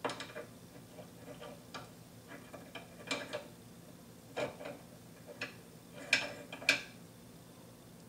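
Irregular metal clicks and clinks from an adjustable wrench working the screw of a chain breaker and the roller chain shifting against the tool, as a rivet is pressed out of the chain. The two loudest clanks come close together near the end.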